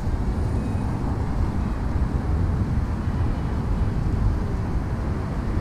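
Outdoor street noise: a steady low rumble of road traffic, with wind buffeting the microphone.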